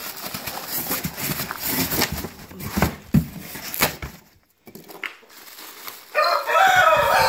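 Cardboard and packing material rustling and scraping as a heavy part is worked out of its box, with a few knocks, then a short pause. About six seconds in, a rooster crows loudly: one long drawn-out call that is still going at the end.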